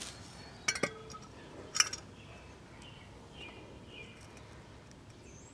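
A few sharp metallic clinks in the first two seconds as metal parts are handled, then faint bird chirps.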